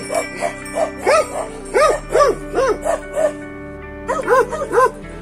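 A dog barking repeatedly, about two barks a second with a short pause a little past the middle, over background music with a steady drone.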